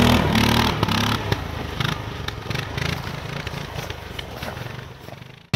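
Articat Cat 550 ATV engine running as the quad pulls away over a rutted, snowy track, growing fainter as it moves off. Scattered clicks and crunches sound through it.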